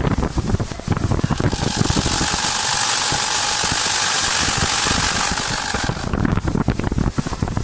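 Automatic CNC wood turning lathe running with a rapid mechanical rattle, and from about one and a half seconds in to about six seconds in a steady high hiss with a faint whine, as the cutter turns the spinning wood blank.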